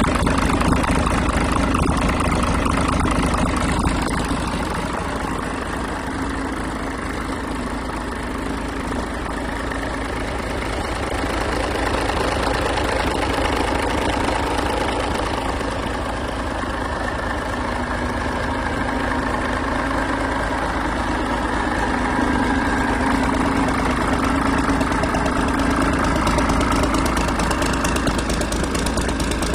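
Yanmar 6CX-ET six-cylinder marine diesel inboard engine idling steadily, its loudness easing and swelling slightly.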